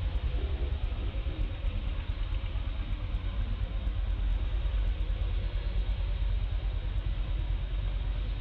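A steady low rumble with a fluttering level and a hiss above it.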